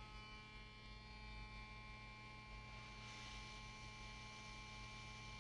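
Faint, steady electrical mains hum with a few thin, constant high-pitched whine tones over it, at a level close to silence.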